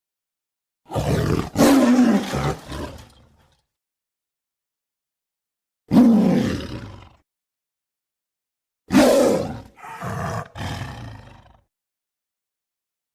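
Gorgosaurus roar sound effects: a pair of roars about a second in, a single roar near the middle, then three short roars in quick succession, each group cut off into dead silence. Each roar falls in pitch as it fades.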